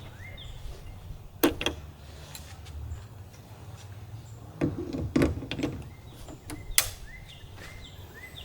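A few sharp clicks and knocks, the loudest a little past a second in and between about four and a half and seven seconds in, over a steady low rumble, with faint short chirps.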